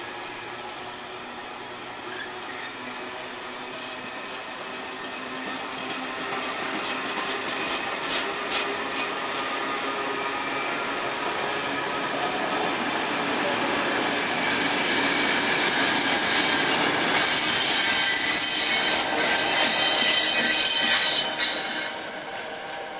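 Wagons of an engineering track-renewal train rolling slowly past, their steel wheels squealing high-pitched on the rails. A rattle of clicks from wheels over rail joints comes first. The squeal grows louder from about halfway, is loudest near the end, then drops away sharply.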